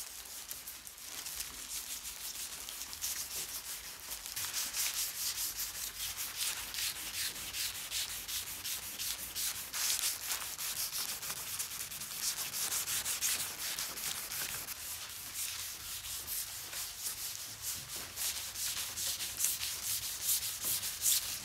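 Plastic-gloved hand rubbing wood stain into bare timber in quick back-and-forth strokes: a continuous hissing rub of glove on wood.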